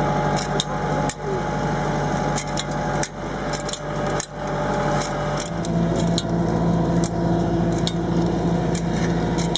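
Tractor-drawn 14-gripper transplanter at work: a steady tractor engine hum under irregular sharp metallic clicks and knocks from the planting mechanism, a few each second. The engine note steps up slightly just past halfway.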